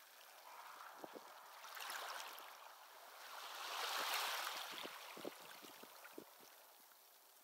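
Small waves washing faintly onto a muddy tidal shore, swelling twice, about two and four seconds in, with scattered soft pops.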